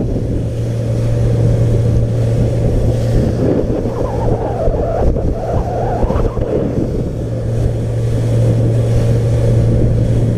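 Bay boat under way at cruising speed, about 22 mph, through light chop: the Suzuki 200 outboard runs with a steady low drone under the rush of wind and water.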